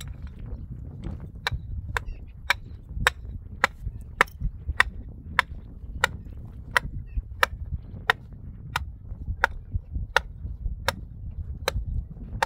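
Tent stake being hammered into stony ground: a steady run of sharp strikes, about three every two seconds, starting a second or so in.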